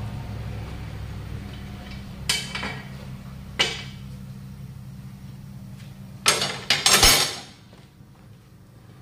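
Steel tyre lever clanking against the steel wheel rim and the tyre-changer as the tyre bead is levered off: single knocks at about two and three and a half seconds in, then a loud clatter of knocks about six to seven seconds in. A low steady hum runs underneath and stops at about seven seconds.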